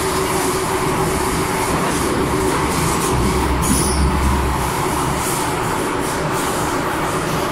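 MTR M-Train electric multiple unit running through a tunnel, heard inside the car: steady wheel-on-rail noise and rumble, with a deeper rumble swelling for a moment about halfway through.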